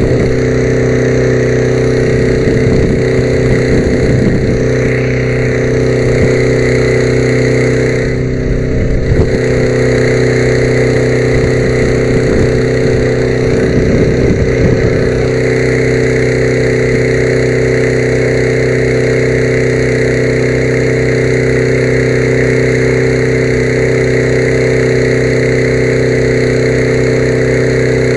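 An engine running steadily at one constant speed, with irregular knocks and handling noise in the first half.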